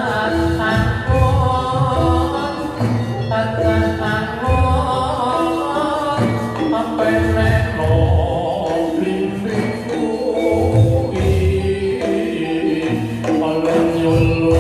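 Javanese gamelan music accompanying a jathilan dance: a singing voice over repeated metal-keyed notes and regular low drum strokes.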